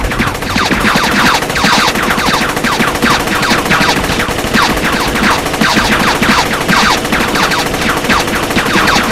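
Sustained rapid machine-gun fire from a film soundtrack: a dense, unbroken run of shots.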